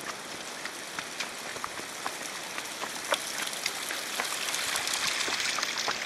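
Footsteps crunching irregularly on a dirt and gravel forest path, over a steady rushing hiss that grows louder in the last couple of seconds.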